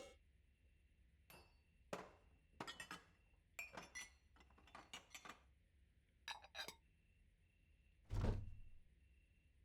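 Mixing bowls and kitchen things clinking as they are gathered and set down on a counter: a string of light clinks and knocks, then a heavier thunk about eight seconds in.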